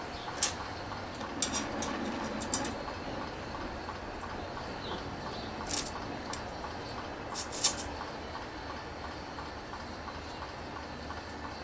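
Brazing torch hissing steadily while copper-coated rod is worked into an exhaust pipe joint, with a few sharp metallic clicks and a faint even ticking about three times a second.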